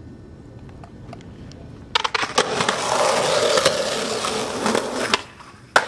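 Skateboard wheels rolling on concrete: a few sharp clacks about two seconds in, then a loud, even rolling noise for about three seconds that cuts off suddenly, followed by one more sharp clack near the end.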